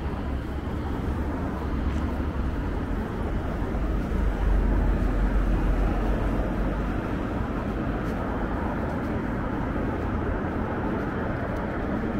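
City street traffic noise: a steady hum of passing cars with a low rumble that swells for a few seconds in the middle.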